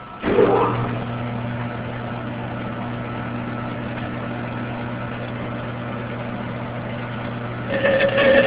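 Lathe motor switched on, its pitch rising briefly as it spins up, then running steadily with a low hum. Near the end a louder, harsher cutting noise begins as the worn hole saw bites into the scrap steel tubing.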